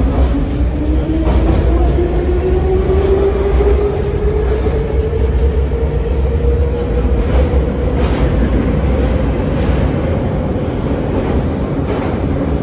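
81-717/714 metro train accelerating out of a station, heard from inside the car. The traction drive's whine rises steadily in pitch, then levels off, over a heavy low rumble from the wheels. A few light clicks from the rail joints come through.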